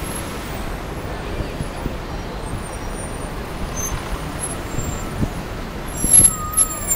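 City street traffic: a steady rumble of passing yellow taxis and a double-decker tour bus. Near the end come a few loud, sharp hisses and a brief wavering squeal.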